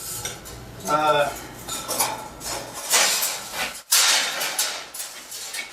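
Steel pieces being handled and set on a steel welding table: metal clanking and scraping, with a sharp clank about four seconds in.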